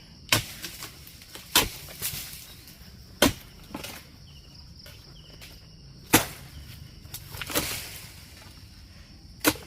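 Harvesting blade chopping into an oil palm's frond and bunch stalks: five sharp strikes at uneven intervals, with a rustling swish between the fourth and fifth.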